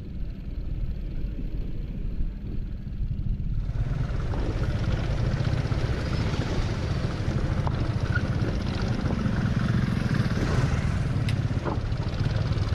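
Aprilia SR 150 scooter's single-cylinder engine running with a steady low drone while riding over a dirt track. About three and a half seconds in, a broad rushing noise of wind and tyres comes in and stays.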